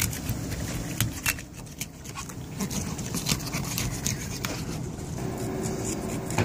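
Knife cutting into a yellowtail on a wooden deck, with scattered light clicks and taps of the blade and hands working the fish, over a steady low rumble. A faint steady hum joins about five seconds in.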